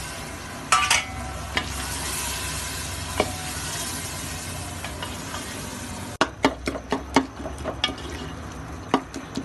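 Tomato masala sizzling in a metal pot while a spoon stirs it, with an occasional clink. About six seconds in, the sizzle drops and a quick run of spoon knocks and scrapes against the pot follows.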